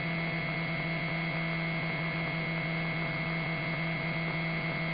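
Steady electrical hum with light hiss on an aircraft's radio and intercom audio feed, held at an even pitch with no voices on the channel.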